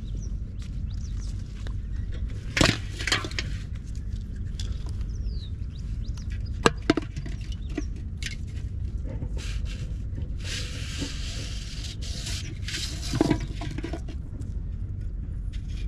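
Several sharp knocks and clatters from a large aluminium cooking pot being handled, over a steady low rumble. A brief rushing hiss comes a little past the middle.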